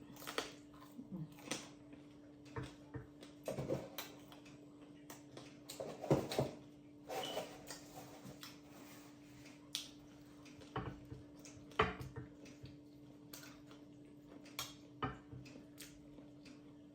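Eating at a table: utensils clicking against a bowl and plate in scattered short clicks, with bursts of chewing, over a faint steady hum.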